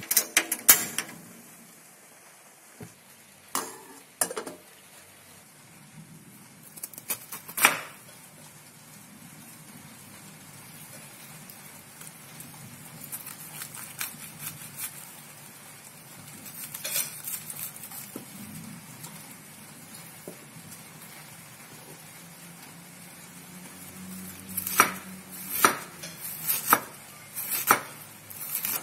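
A kitchen knife cutting a head of cabbage on a wooden cutting board, ending in a run of sharp chopping strokes, about two a second, as the cabbage is shredded. A few sharp knocks and clicks come in the first seconds.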